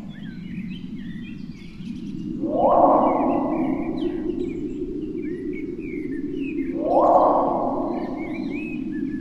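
Animated forest ambience of small birds chirping over a low steady rumble, with a magical whoosh that swells up and fades away twice, about three seconds in and again about seven seconds in, as each girl's glowing orb lights.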